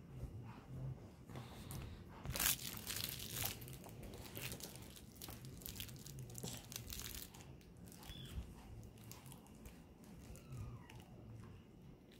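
Soft, irregular crinkling and rustling, heaviest from about two and a half to three and a half seconds in.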